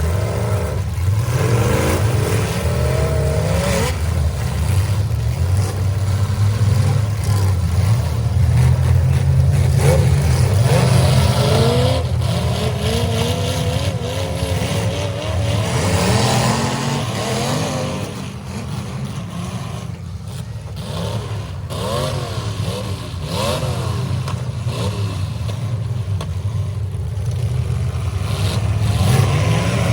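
Several demolition derby cars' engines running and revving up and down, with occasional sharp bangs and clatter. The engine noise is loudest about a third of the way in and eases off for a few seconds past the middle.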